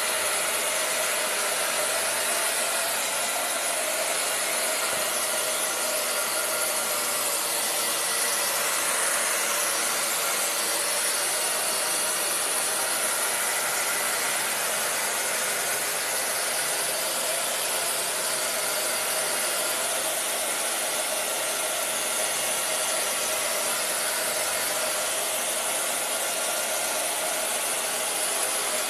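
Hand-held hair dryer running steadily: a constant rushing blow of air with a faint motor whine. It is drying a freshly brushed-on thin layer of glitter glue so the craft work can go on.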